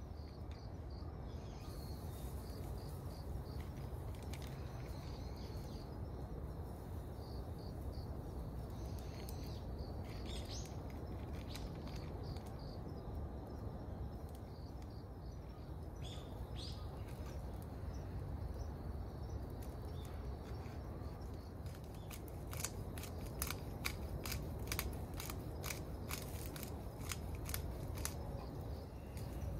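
Forest ambience with a steady low rumble, a faint insect chirr and a couple of short bird chirps, then, in the last third, a quick run of sharp snaps and crackles from the small campfire being worked at.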